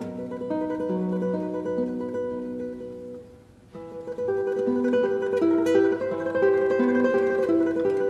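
Solo nylon-string classical guitar, fingerpicked. The notes fade to a near-pause a little after three seconds in, then the playing comes back in louder just before four seconds.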